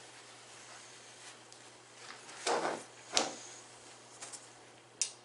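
Gloved hands handling an airbrush and small paint bottles on a desk: two short knocks with rustling a little past halfway, and a sharp click near the end, over a low steady hum.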